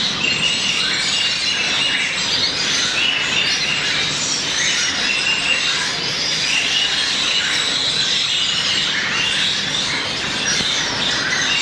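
Blue-faced parrotfinches calling, many short high chirps overlapping in a steady, busy chatter.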